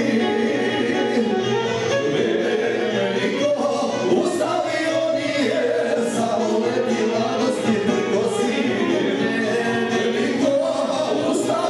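Live singing by several voices together, running without a break and heard from within a packed crowd.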